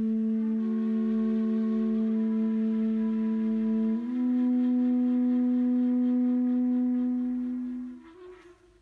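A kaval and a soprano saxophone hold long, steady notes together. The notes shift to new pitches about two and four seconds in, then fade out about eight seconds in.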